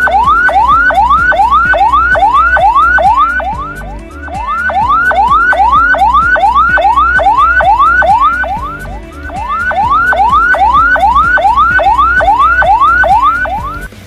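Ambulance siren sounding in quick rising sweeps, about three a second, each climbing and then dropping off sharply, in three runs with a brief fade between them about four and nine seconds in. This siren pattern marks an ambulance carrying a non-emergency patient.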